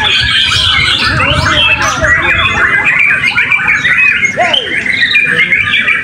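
Many caged white-rumped shamas singing at once in a dense chorus of overlapping whistles, chirps and quick warbles.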